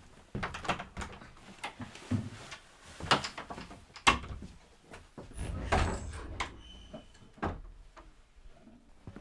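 Footsteps on wooden floorboards and an old wooden door being opened and shut: an irregular string of knocks and thuds, the sharpest about three and four seconds in and a heavier thud around six seconds.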